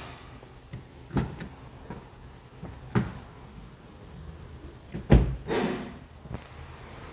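Knocks and thumps of handling at an open car door: three sharp knocks about two seconds apart, the loudest about five seconds in, with rustling between them.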